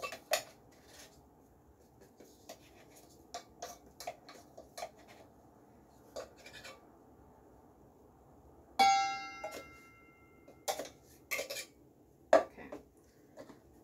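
Metal measuring spoons tapping and scraping against a stainless steel mixing bowl while dry ingredients are spooned in, with one loud ringing metal clink about nine seconds in and a few sharper taps after it.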